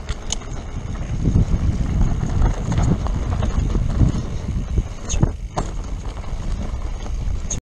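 Mountain bike running fast down a dirt forest singletrack: a steady low rumble of wind buffeting the on-bike camera's microphone, full of rattles, clicks and knocks as the bike goes over bumps and roots. The sound cuts off abruptly near the end.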